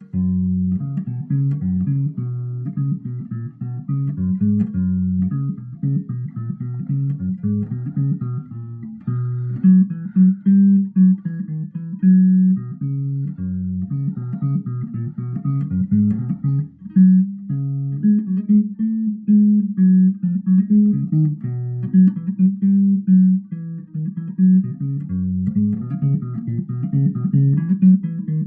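Peavey Zodiac EX Precision-style electric bass played through a small Fender Rumble 15 W bass amp with no effects: a continuous bass line of plucked notes changing several times a second, with no pauses.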